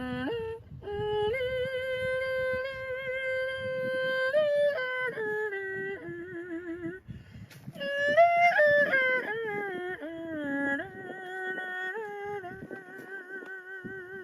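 A voice holding long, slightly wavering notes that step up and down between pitches, with a short break about seven seconds in.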